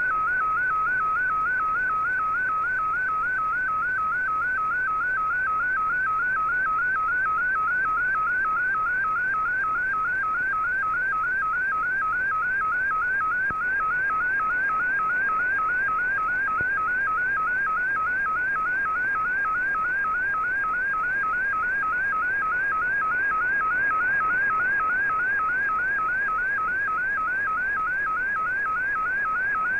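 Slow-scan television (SSTV) picture signal from a shortwave radio broadcast, heard through the receiver: a single warbling tone that dips and rises in a quick, even rhythm, one sweep per scan line as the picture comes in, over a light bed of radio hiss.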